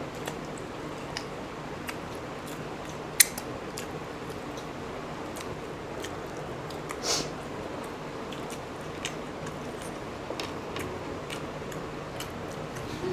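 People eating boiled eggs: chewing sounds over a steady background hum, with scattered small clicks and taps. There is one sharp click about three seconds in and a short noisy burst near the middle.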